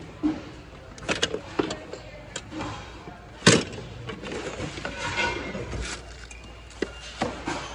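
Hard objects knocking and clinking as a hand rummages through a plastic bin of metal kitchenware and glassware, in a series of short knocks, the loudest about three and a half seconds in.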